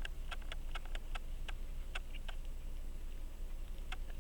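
Mechanical pocket watch ticking close up, a quick, even beat of about five ticks a second, broken by a pause of about a second and a half past the middle before the ticking returns.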